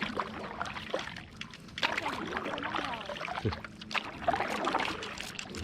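Kayak paddles working the water: splashing, with water trickling and dripping off the blades, in two stretches about two seconds in and again about four seconds in.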